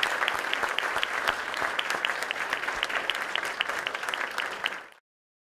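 An audience applauding, many hands clapping at once; it cuts off abruptly about five seconds in.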